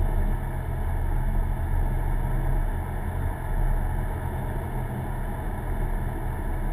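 Car driving at a steady speed, heard from inside the cabin: a steady low engine drone and road rumble with no sharp events.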